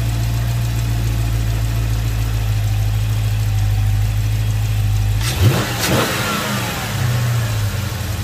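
Dodge Charger Scat Pack's 6.4-litre (392) HEMI V8 idling steadily with a freshly fitted aFe drop-in air filter, blipped once about five seconds in, the revs rising and then falling back to idle. The exhaust note covers any intake sound from the new filter.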